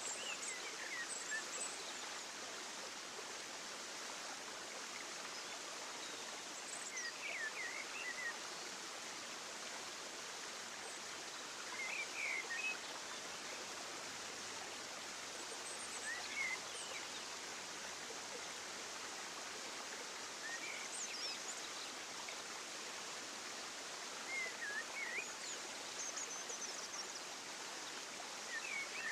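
Outdoor nature ambience: a steady, even rushing noise like flowing water, with short, high bird-like chirps every few seconds.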